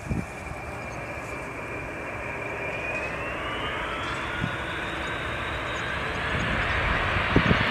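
The four jet engines of a Boeing 747-400 running on approach and landing, getting steadily louder, with a whine that rises in pitch. A few short dull thumps stand out, most clearly near the end.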